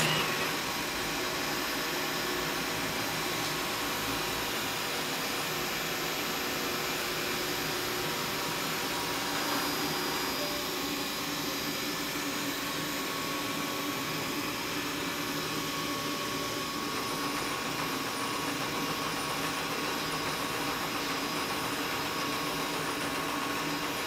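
Robot vacuum cleaner running with a steady whir of its suction motor and brushes.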